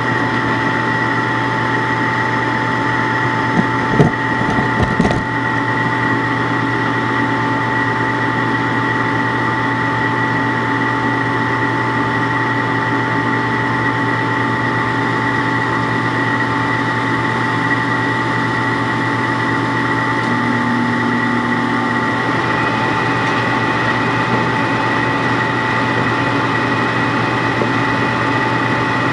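Propane furnace running: a steady hum with a constant whine, unchanging throughout. A few short knocks come about four seconds in.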